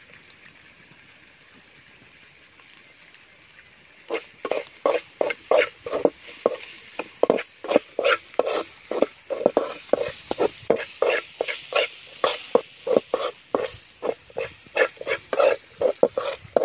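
A metal spoon stirring and scraping a snail fry in an aluminium pan, starting about four seconds in as quick strokes against the pan, about three a second.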